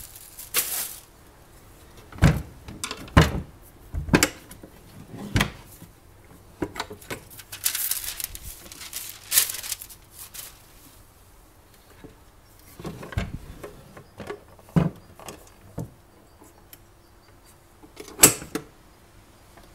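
Irregular knocks and thuds of a pie maker's parts and accessories being handled and set down, with short bursts of rustling packaging; a sharp knock near the end is the loudest.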